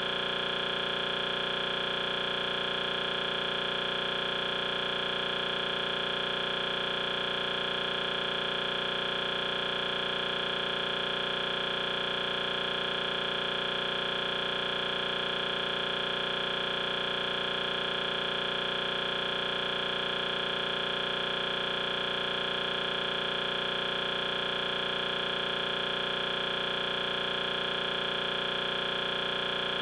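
A steady, unchanging electronic buzz with a strong high tone, held without a break. It sounds like a stuck digital glitch from a frozen, corrupted recording, not a live sound.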